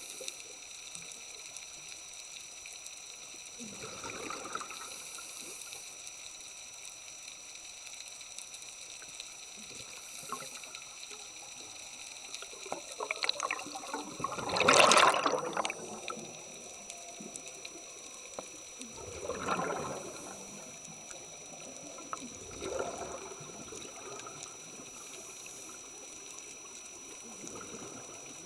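Scuba diver's exhaled bubbles gurgling past an underwater camera in bursts every few seconds, the loudest about halfway through, over a steady faint water hiss and a thin high steady tone.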